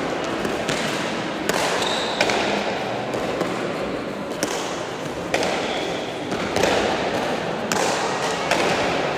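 Bare-hand Basque pelota rally: the hard leather-covered ball strikes the front wall and the players' bare hands in sharp knocks about once a second, over a steady background noise of the hall.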